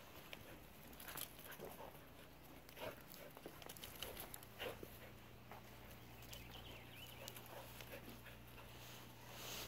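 Faint, scattered patters and scuffs of a puppy's paws on wood-chip ground as it dashes around a hen.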